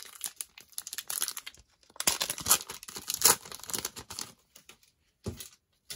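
Plastic wrapper of a trading-card cello pack being torn open and crinkled in the hands, loudest between about two and three and a half seconds in. A soft knock comes near the end.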